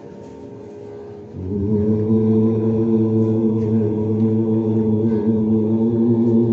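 A large group of voices chanting together in unison with long, steady held notes, coming in loudly about a second and a half in after a quieter start.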